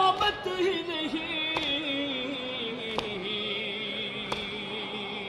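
A man's voice singing a noha, an Urdu lament, drawing out a long wavering note that sinks and is then held low. Sharp slaps of chest-beating (matam) mark the beat about every second and a half.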